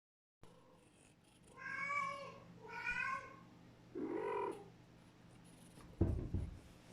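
Domestic cat meowing three times in quick succession, the third call lower in pitch. A low thump comes near the end.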